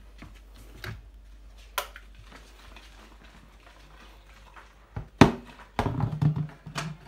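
Scattered clicks and knocks of things being handled. The loudest is a knock a little after five seconds in, followed by a clatter of knocks near the end.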